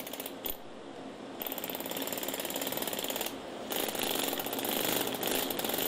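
A pneumatic carving chisel hammering on natural stone in rapid, even strikes. It runs in two spells with a short break in the middle, starting about a second and a half in. The mason judges by this sound how the chisel is biting into the stone.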